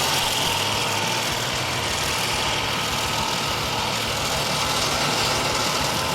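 Heavy machine's engine running steadily at a constant speed, with an even hiss over it.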